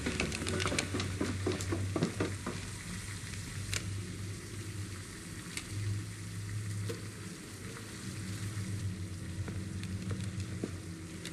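Crackling hiss over a low steady hum, with a quick run of clicks and knocks in the first couple of seconds and a few single clicks after.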